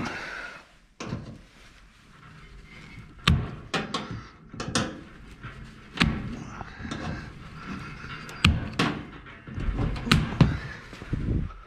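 Miscellaneous scrap (fans, lamps, household junk) being handled and loaded: a string of irregularly spaced sharp knocks and thumps, starting about three seconds in.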